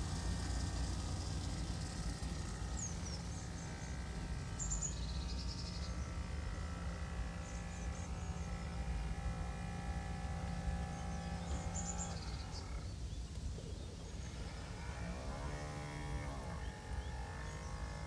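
Radio-controlled model fishing boat's motor running with a steady multi-tone hum. The hum drops away about twelve seconds in, then comes back a few seconds later with a pitch that falls and then holds, as the throttle changes.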